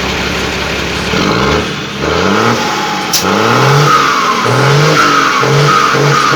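Ford truck's turbo-diesel engine being revved hard several times, the pitch climbing and dropping back with each blip, then quick rhythmic blips near the end. A brief sharp hiss comes about halfway through.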